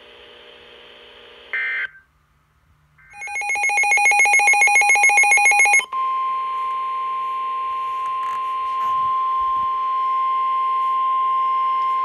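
Midland weather radio sounding its rapid pulsing alert beep for about three seconds. It then switches to the steady 1050 Hz NOAA Weather Radio warning alarm tone, which signals that a warning is about to be read.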